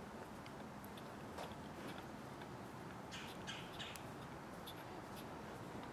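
Faint clicking and scraping of a small hand screwdriver driving tiny screws into the plastic differential cover of an RC crawler axle, with a few short high chirps about three seconds in.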